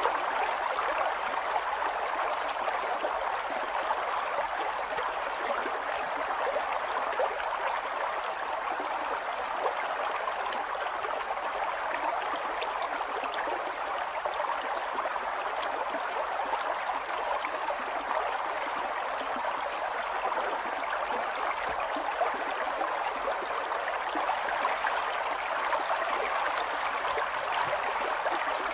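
Flowing water running steadily, with small splashes and trickles flecked through it.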